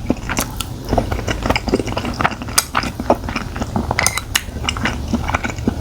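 Utensils tapping and clinking against a dish, a run of many light, irregular clicks as food is picked up.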